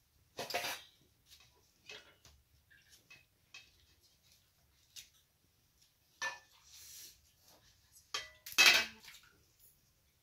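Metal ladles clanking against a metal cooking pot and bowls as broth is ladled out, a few separate clatters with brief ringing, the loudest just after eight seconds in.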